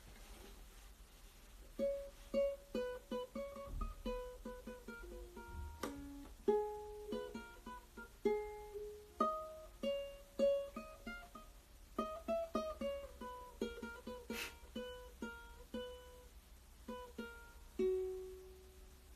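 Ukulele played alone: a plucked melody of single notes that starts about two seconds in and ends on one held note near the end.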